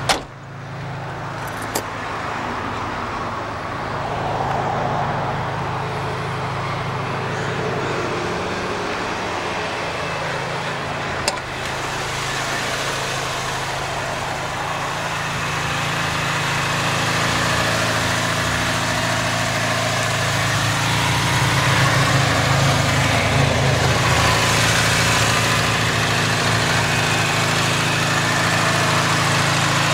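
Daihatsu Hijet truck's 550cc engine idling steadily. A sharp knock comes right at the start, with two smaller clicks after about 2 and 11 seconds.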